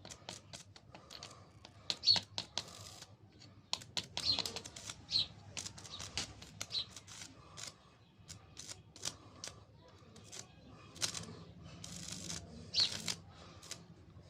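Hands working on ballast wiring: scattered sharp clicks and taps, with a few short scrapes.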